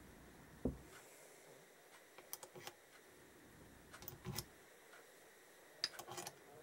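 Faint clicks and light metal-on-metal taps from a motorcycle brake pedal and its pivot hardware being fitted by hand to an aluminium footrest hanger. There is one dull knock near the start, then three short bursts of clicking about two seconds apart.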